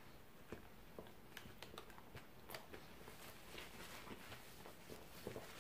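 Faint chewing of a mouthful of burger, with small irregular mouth clicks.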